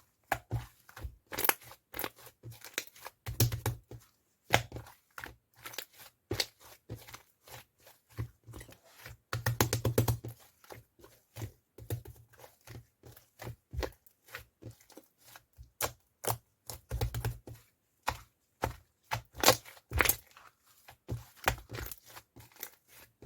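Irregular crisp crackling and tearing sounds made by hand, a quick series of sharp clicks with a longer, denser crackle about ten seconds in.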